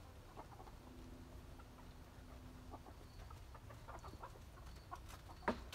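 Silkie chickens clucking faintly, with a sharp knock near the end.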